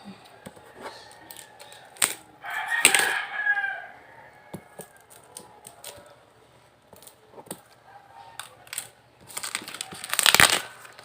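A rooster crows once in the background about three seconds in, over scattered clicks and rustles of packaging being handled. Near the end comes a loud crinkling rustle of the package.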